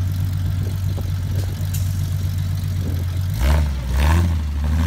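Rock-crawler buggy engine running steadily. About three and a half seconds in, the note drops lower and surges louder a few times as the throttle is worked on the rock.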